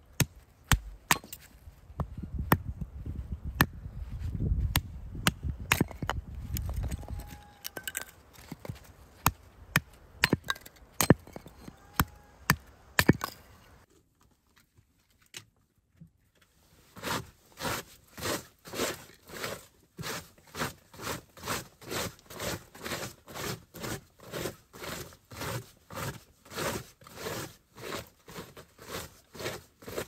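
Wood being worked by hand: irregular sharp knocks of chopping, then, after a pause of a few seconds, steady scraping strokes at about one and a half a second.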